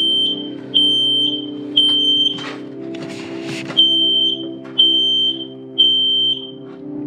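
Smoke alarm sounding during a test: high-pitched beeps in the temporal-three pattern, three beeps about a second apart, a pause, then three more, showing the newly installed alarm works. Background music runs underneath.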